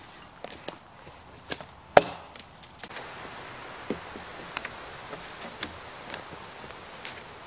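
Wood being struck and broken by hand: about nine sharp knocks and cracks at uneven intervals, the loudest about two seconds in.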